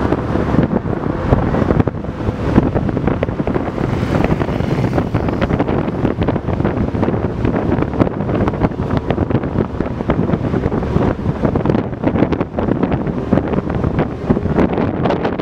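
LiAZ-677M city bus under way: its V8 petrol engine and road noise run steadily, with wind buffeting the microphone at the side window.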